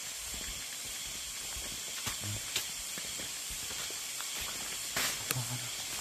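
Steady hiss of rushing water from a nearby waterfall and its stream. A few faint knocks sound about two seconds in and again near the end.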